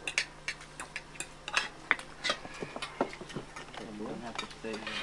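Irregular sharp clicks and knocks, a few a second, with a low voice murmuring near the end.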